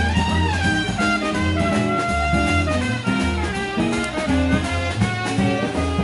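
Live jazz band with an upright double bass playing swing music: a stepping bass line under a held, wavering melody line.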